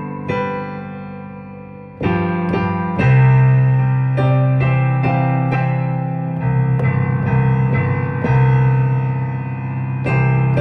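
Piano played in slow, full chords over a strong, held bass note. A held chord fades away, then a louder new chord comes in about two seconds in, and the harmony moves on about once a second after that.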